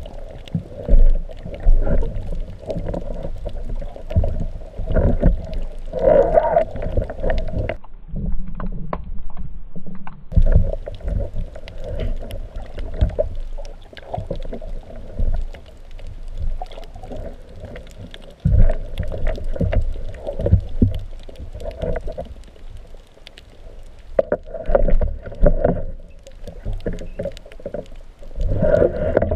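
Underwater noise heard through a GoPro's waterproof housing: a steady low rumble of moving water, with many scattered clicks and knocks.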